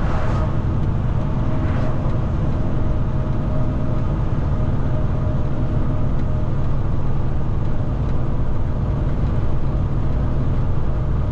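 Semi-truck's diesel engine running steadily under way with road noise, heard from inside the cab as a low, even drone.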